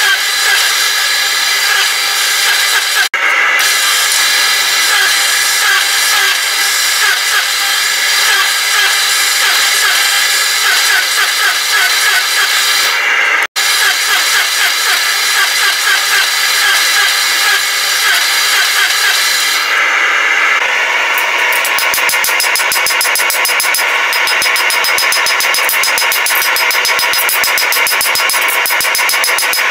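Forging press running with a steady, loud mechanical whir as it squeezes a red-hot blade blank. About two-thirds of the way through, the sound changes to a fast, even clatter.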